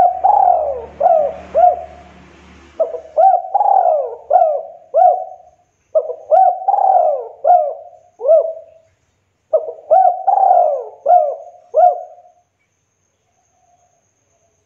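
Spotted dove cooing: four phrases, each a quick run of five or six coos, with short pauses between them, stopping about twelve seconds in.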